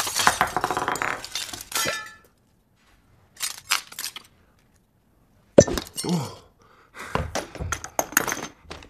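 Glass Christmas ornaments clinking and shards of a broken ornament rattling on a wooden tabletop, in scattered bursts of small clicks with one sharp knock about five and a half seconds in.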